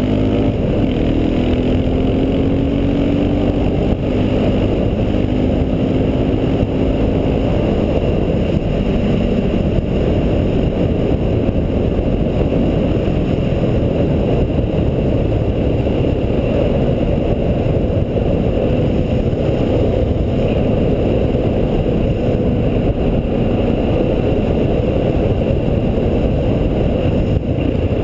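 Honda Foreman 500 ATV engine running steadily while riding along a gravel road, mixed with dense wind and road rumble. A pitched engine tone stands out in the first several seconds, then fades into the rumble.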